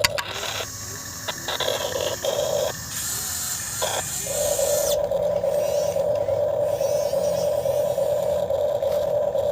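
RC excavator working: the steady high whine of its motor drops out for a few seconds of clicks and a hiss, then comes back on about four seconds in and runs steadily.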